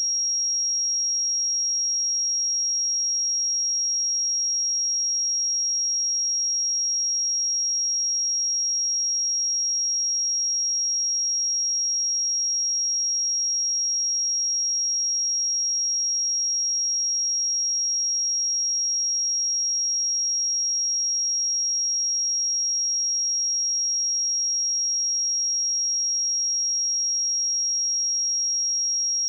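A pure 5613 Hz sine-wave test tone, a single steady high-pitched note held without change.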